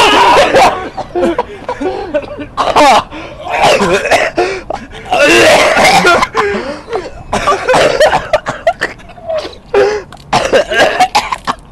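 A man retching, gagging and coughing in repeated loud heaves as he tries to make himself vomit.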